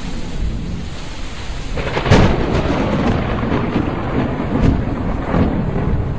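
Logo-intro sound effect: a steady rushing hiss, then a sharp crack about two seconds in, followed by a rolling rumble with a few smaller cracks, like a thunderclap over rain.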